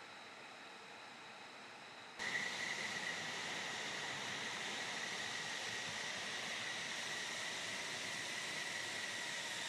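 Faint steady hiss, then about two seconds in a sudden step to the louder rushing noise and steady high whine of an F-35's Pratt & Whitney F135 turbofan as the jet taxis.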